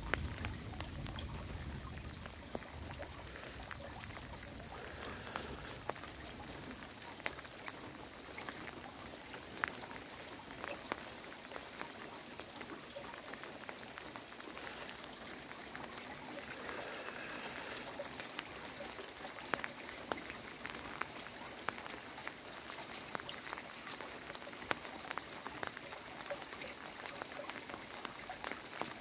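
Heavy rain falling steadily, with frequent sharp ticks of drops hitting nearby surfaces. A low rumble fades out in the first few seconds.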